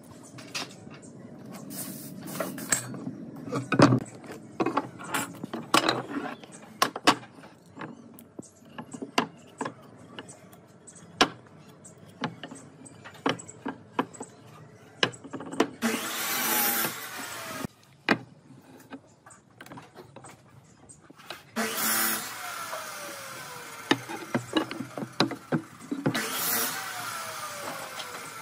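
Wooden boards knocking and clattering as they are handled and set down on a wooden worktable, with pencil and steel-square taps among them. Three longer rushing noises with a falling tone come about halfway through and again near the end.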